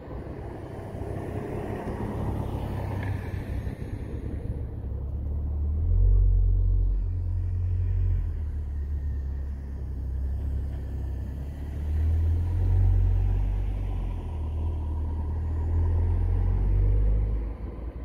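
Ford Focus ST225's turbocharged five-cylinder engine and exhaust giving a deep, low rumble as the car drives around. It swells three times, about six, twelve and sixteen seconds in, then drops off just before the end.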